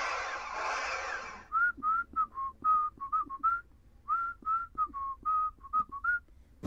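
A rushing hiss for about the first second and a half, then a whistled tune of short, quick notes that opens the intro music.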